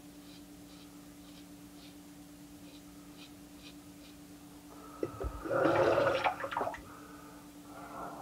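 Gold Dollar stainless straight razor scraping through lather and stubble in short strokes, about two a second, over a steady low hum. About five seconds in, a loud rush of running water lasts about two seconds.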